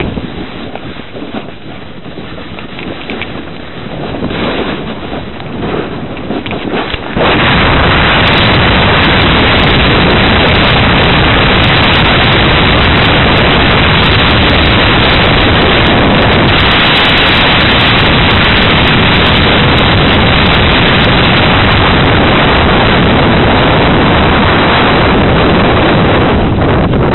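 Wind buffeting the camcorder microphone while snowboarding, gusty and uneven at first. About seven seconds in it jumps to a much louder, flat, overloaded rush of noise.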